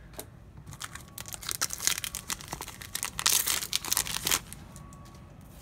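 Foil trading-card booster-pack wrapper crinkling and tearing as the pack is opened. It starts about a second in and grows loudest near the end before stopping.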